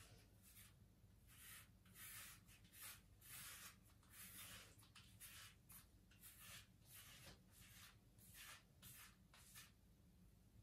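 Faint scraping of a cartridge razor drawn over a foam-lathered scalp, cutting stubble in short strokes at about two a second.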